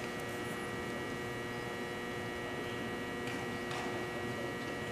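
Steady electrical hum made of several unchanging tones over a low hiss, with two faint ticks about three and a half seconds in.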